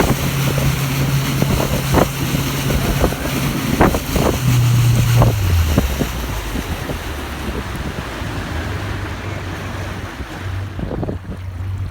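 Boat motor running over wind and water noise, its note dropping about halfway through as the boat slows, then starting to rise again near the end.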